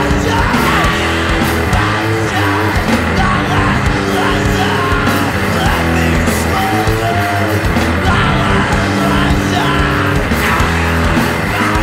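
Hardcore punk band recording: loud, dense guitars and drums playing steadily, with shouted vocals over them.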